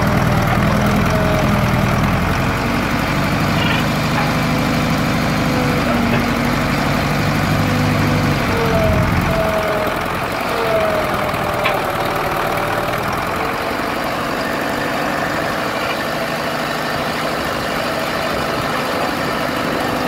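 JCB Model 4 backhoe loader's diesel engine running while the backhoe arm digs, with short whining glides from the hydraulics as the controls are worked. The engine's deep note drops away about halfway through.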